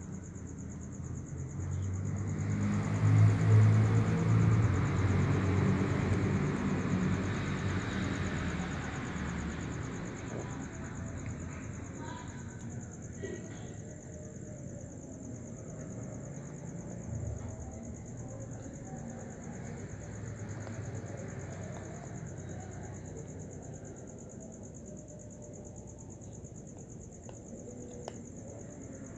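Cat eating dry kibble from a plastic tub, with faint scattered crunching ticks. A low rumble swells a couple of seconds in and fades over several seconds. A steady high-pitched hum runs underneath.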